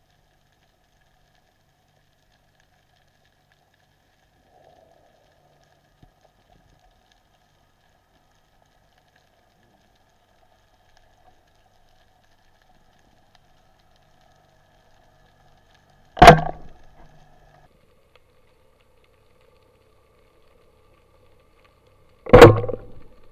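Two speargun shots underwater: loud, sharp cracks about six seconds apart, each with a short ringing tail. The second sends the spear into a barracuda.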